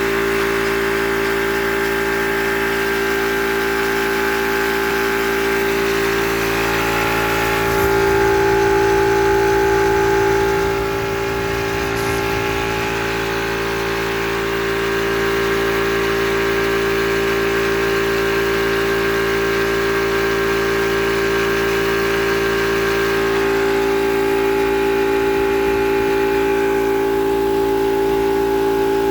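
Yong Heng high-pressure air compressor running with a steady hum, briefly louder about a third of the way in, then a little quieter for a few seconds before settling back to a steady run.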